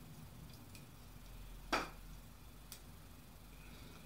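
Handling sounds from a hand-held wire stripper being readied on a piece of hookup wire: a few faint ticks and one sharp click a little under two seconds in.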